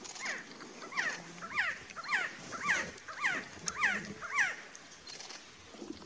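Male resplendent quetzal calling: a run of about eight falling notes, roughly two a second, that stops about four and a half seconds in.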